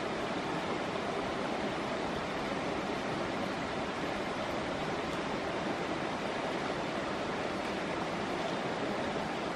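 Steady rushing of a shallow stream flowing over rocks, an even wash of noise with no distinct events.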